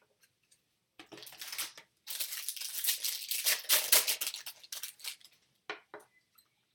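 Plastic wrapper of a Bowman Chrome jumbo trading-card pack being ripped open and crinkling: a short rip about a second in, then a longer stretch of crinkling and tearing, and a few light clicks near the end.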